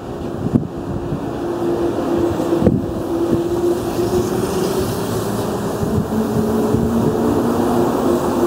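JNR 189 series electric multiple unit accelerating out of a station: its traction motors hum in steady tones that shift up a little as it gathers speed, over rolling wheel noise, with a couple of knocks in the first three seconds and wind on the microphone.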